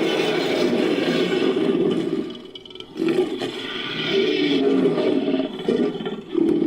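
Made-up monster roar layered from big-cat and ape roars: a long, gravelly roar that fades about two seconds in, then a second long roar that ends abruptly near the end.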